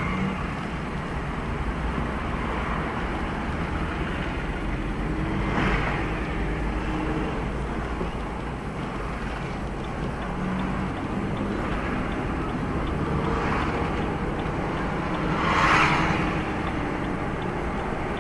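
Steady vehicle and road noise, with louder swells of passing traffic about six seconds in and again near the end.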